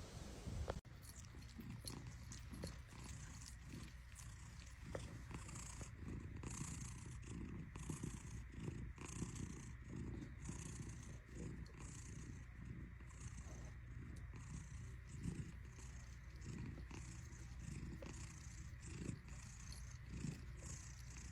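A domestic cat purring steadily, starting about a second in.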